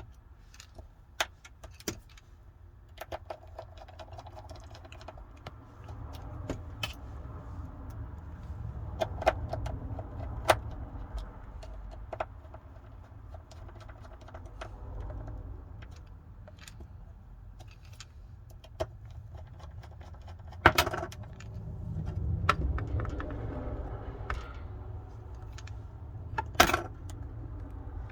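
Scattered small clicks and light metallic taps of tools and parts being handled while a smartphone (Samsung Galaxy Note 20 Ultra) is reassembled, irregular and a few louder than the rest, over a steady low rumble.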